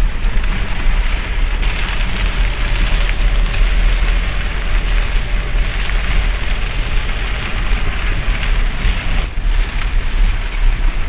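Heavy rain drumming steadily on a moving vehicle, with a steady low engine and road rumble underneath.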